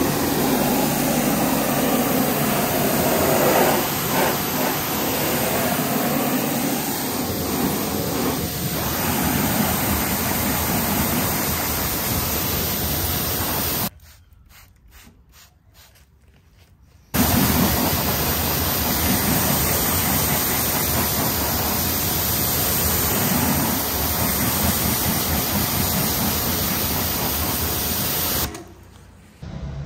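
Pressure washer spraying a car's alloy wheel and tyre with a loud, steady hiss. About halfway through the jet stops for a few seconds while a trigger spray bottle squirts several times onto the wheel. Then the pressure-washer spray resumes.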